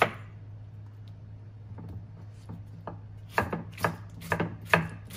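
Kitchen knife chopping tomatoes on a thick wooden chopping board, mincing them finely. There is a strike at the start, a pause of about three seconds with a few light taps, then regular chopping at about two strokes a second.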